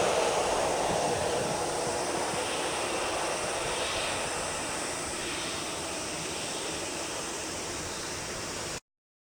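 Jet noise from a departing Boeing 747-8 freighter's four GEnx engines, a steady roar without tones that slowly fades as the aircraft climbs away. It cuts off abruptly near the end.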